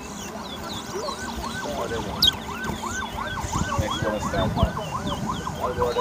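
Caged towa-towa seed finches singing in a song race: a fast run of rising-and-falling whistled notes, about three a second, with higher chirps over them and a sharp click about two seconds in.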